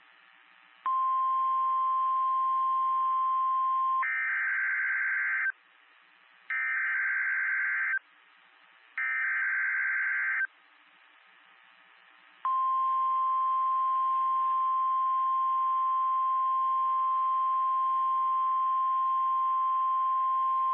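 NOAA Weather Radio emergency alert over radio hiss. A steady high tone plays for about three seconds, then three short screechy SAME data bursts of the alert header. The 1050 Hz warning alarm tone then sounds steadily for about nine seconds, announcing a severe thunderstorm warning.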